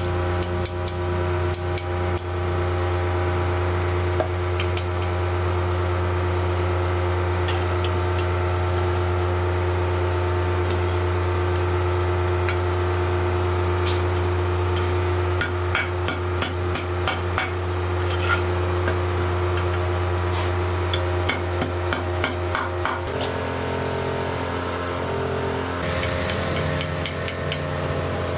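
A machine hums steadily under repeated sharp metal taps and clicks from tool work; about two-thirds of the way through, the hum's tone shifts.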